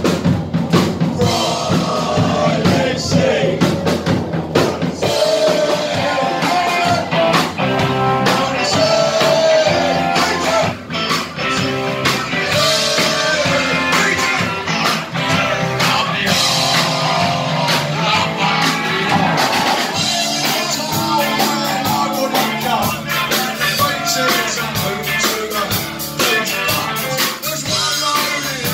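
Live rock band playing: drum kit, electric guitar and bass guitar, with a voice singing over them, heard from within the audience.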